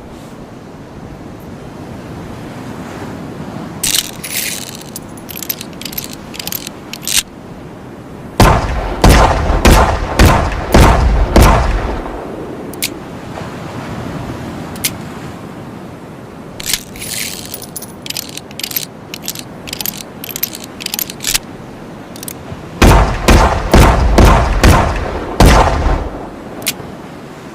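Revolver sound effects: a run of sharp metallic clicks and rattles, then about six shots fired in quick succession, a little under a second apart. The pattern then repeats: clicks, followed by a second volley of about six shots.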